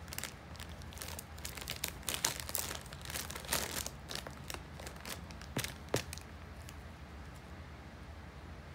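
Plastic Hawaiian Punch candy bag crinkling as a cat digs into it with its paw, a quick run of crackles that stops about six seconds in.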